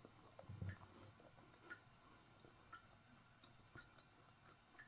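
Near silence: quiet room tone with faint, soft ticks roughly once a second and one soft low thump about half a second in.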